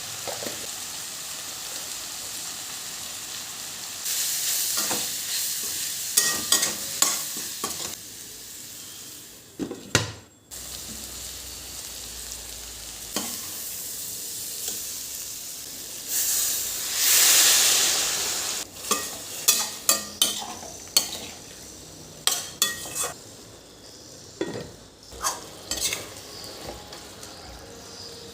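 Food sizzling as it fries in a pan while a utensil stirs it, scraping and knocking against the pan in many short clicks. A louder swell of sizzling comes a little past halfway, followed by a quick run of taps.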